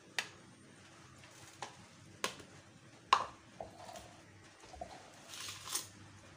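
Kitchen knife and plastic bowl being handled on a wooden chopping board: a few sharp knocks about a second apart, the loudest about three seconds in, then lighter quick taps of the knife slicing chilies on the board.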